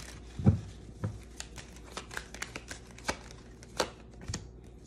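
A deck of oracle cards being shuffled by hand: a run of irregular light clicks and taps as the cards slide and knock together, with a soft thump about half a second in.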